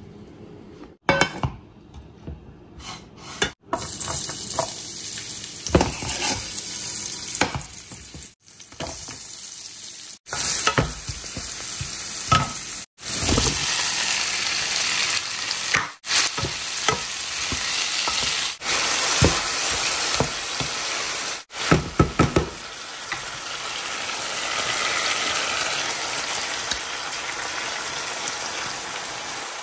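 Onions and tomatoes sautéing in hot oil in a frying pan: a steady sizzle with sharp clicks and scrapes of stirring. The sound breaks off briefly several times.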